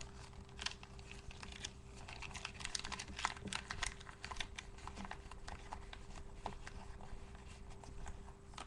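A sheet of printer paper being rolled tightly by hand: a dense run of small irregular crackles and rustles, thinning out in the second half, over a faint steady hum.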